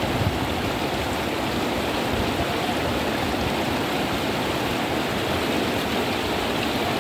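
Fast-flowing floodwater rushing across a road: a steady, loud, even rush of water.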